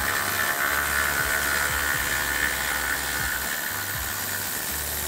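Milwaukee cordless electric ratchet running steadily with a 10 mm socket, backing out a headlight mounting bolt; the motor stops near the end.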